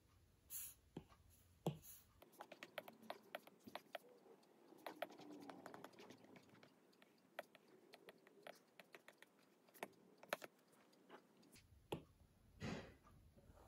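Faint, irregular light taps and clicks of an Apple Pencil tip and fingertips on an iPad's glass screen while drawing, some coming in quick runs.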